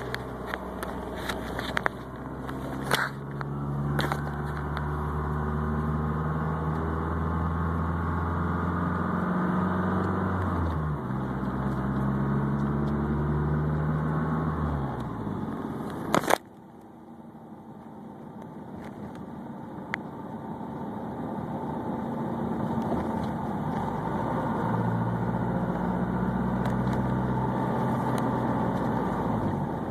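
Mazdaspeed6's turbocharged 2.3-litre four-cylinder engine running, its note stepping down in pitch twice. A sharp click about sixteen seconds in cuts the engine note off, and a steady running sound builds back over the following seconds. The recording is meant to capture a weird noise from the car, which is not identified.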